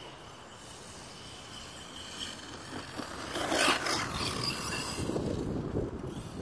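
Electric motor of a Redcat Blackout XTE RC monster truck driving over grass: a faint thin whine at first, then a loud rush of noise about halfway through as the truck runs harder, followed by a grainy rumble.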